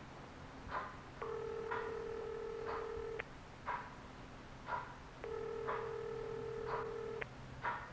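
Telephone ringback tone heard through the handset while a call rings out unanswered: a steady mid-pitched tone about two seconds long, sounding twice with a pause between. Soft short ticks come about once a second alongside.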